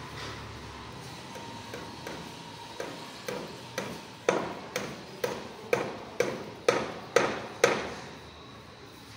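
Water glugging from a tipped plastic bottle as it is poured into a home-made sand-and-charcoal filter: a steady run of glugs, about two a second, getting louder about four seconds in and stopping near the end.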